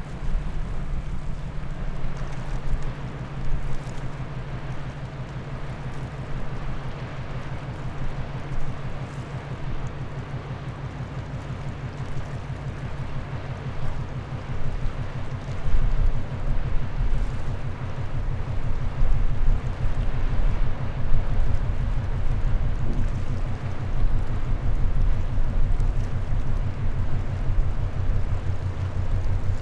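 Deep, steady engine drone of a large MSC container ship passing close by, with a fast pulsing beat and a wash of water noise. It grows louder in the second half as the ship's aft section with its superstructure draws level.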